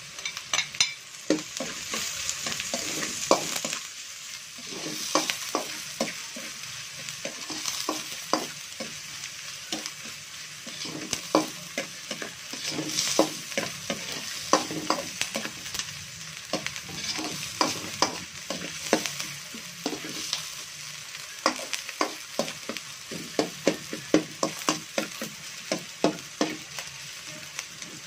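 Ginger, onion and garlic sizzling steadily in hot oil in a stainless steel wok, while a metal spatula stirs them with repeated, irregular scrapes and clicks against the pan.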